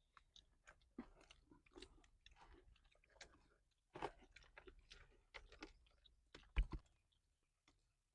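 A person chewing crisp fried egg pakoras: faint, irregular crunches, the loudest about four seconds in and again shortly before the end.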